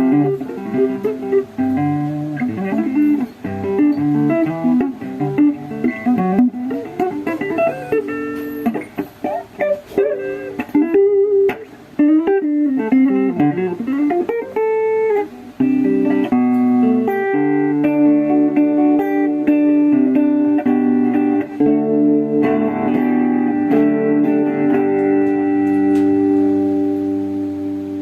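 Guitar playing a single-note line with string bends and wavering pitch, then held chords that ring out and fade near the end.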